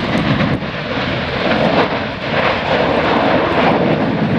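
Stromboli summit vent in Strombolian eruption: a loud, steady rushing blast of gas jetting from the vent as it throws up glowing lava spatter.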